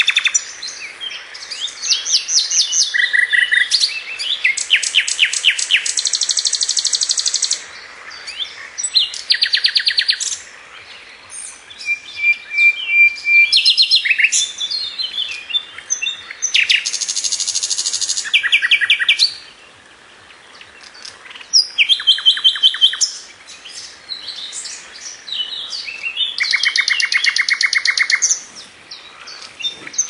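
Songbird song in phrases one to three seconds long, each a fast run of repeated notes or a rattling trill, with short pauses between. Midway there is one pure whistled note held for about a second.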